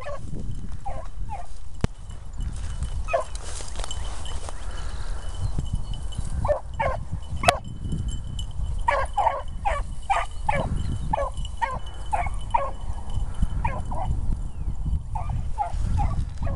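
Rabbit hounds baying while running a rabbit's trail: short, pitched barks in scattered runs, thickest through the middle, over a steady low rumble.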